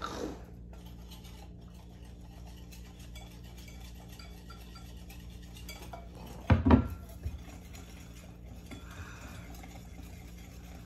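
Wire whisk stirring in a ceramic bowl, clinking against its side, with a few sharp, loud clinks about six and a half seconds in.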